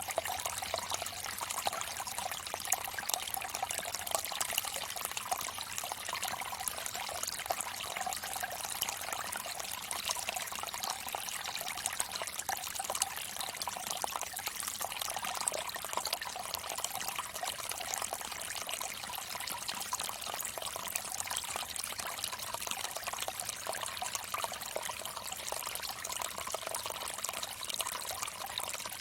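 Water trickling steadily from a bamboo fountain spout, a continuous splashing pour into the water below.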